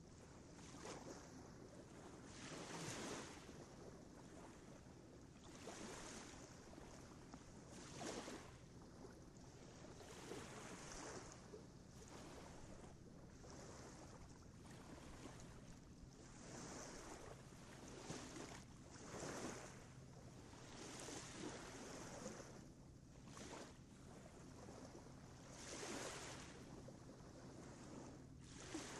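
Faint rushing noise that swells and fades every second or two, over a low steady hum.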